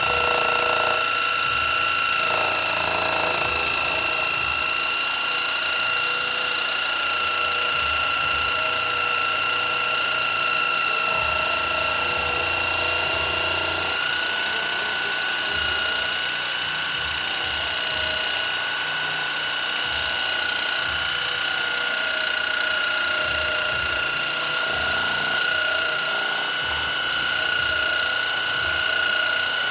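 An electric drill running continuously with a steady whine, its pitch stepping up slightly about halfway through, with occasional low knocks.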